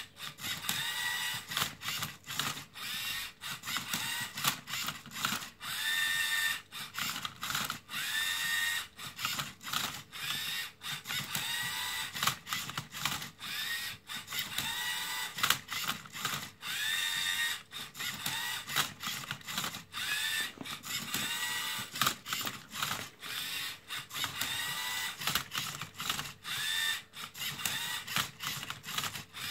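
LEGO Mindstorms EV3 motors of a MindCub3r robot turning and flipping a Rubik's cube: a run of short motor whines, each rising in pitch as the motor spins up, every second or two, with clicks and clacks of the cube and plastic parts between moves.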